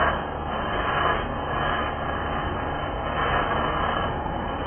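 Wire-feed (MIG) welding arc running continuously along a steel joint: a steady hiss that swells slightly now and then.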